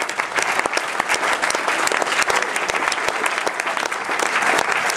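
An audience applauding, many hands clapping steadily without a break.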